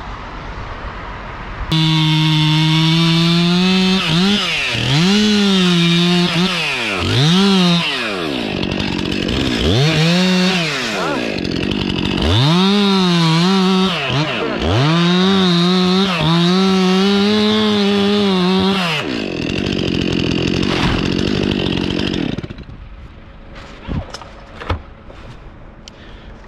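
Chainsaw cutting poplar wood. It starts abruptly about two seconds in and runs at high revs, the engine note dipping and rising again and again as the throttle is worked. Near the end it drops to a lower idle and stops, followed by a few short knocks.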